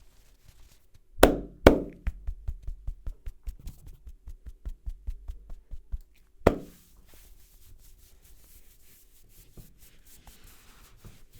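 Hands striking a head during a barber's massage: two sharp slaps a half-second apart, then a fast, even run of smaller taps at about five a second, and one more slap. Soft rubbing follows.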